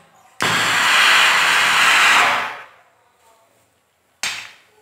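Acetylene jet from a homemade calcium carbide gas torch hissing steadily under pressure, starting abruptly and dying away after about two seconds. Near the end there is a short, sudden burst.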